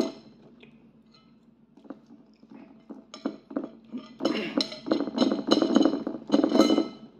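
Close-up, wet chewing and lip-smacking while eating, growing loud and busy about three seconds in, with a few light clinks of a metal fork against a ceramic bowl.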